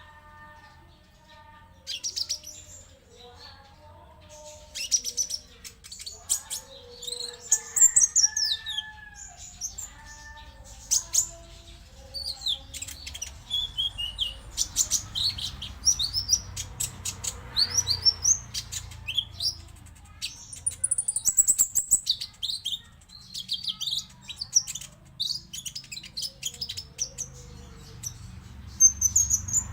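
Olive-backed sunbird song: rapid, high-pitched twittering made of many short chirps, trills and quick falling notes, played as a lure to make caged males sing. For about the first ten seconds, lower warbling notes sound beneath the chirps.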